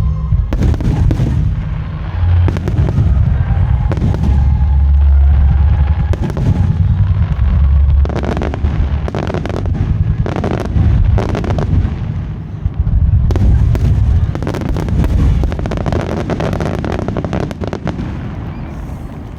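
Fireworks display: aerial shells bursting one after another in quick volleys, with deep booms and crackling. The barrage thins out and fades near the end.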